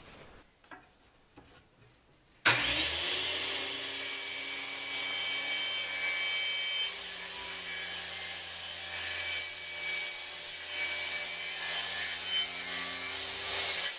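Circular saw switched on about two and a half seconds in, its motor whining up to speed, then running steadily as it cuts a slot along the edge of a wooden drawer front.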